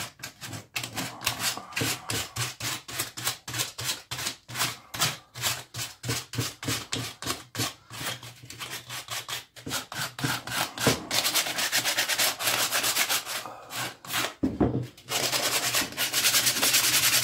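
Sandpaper rubbing by hand over a stained wood carving in quick back-and-forth strokes, several a second, becoming faster and almost continuous near the end. The sanding lightly takes the dried stain off the carving's high points.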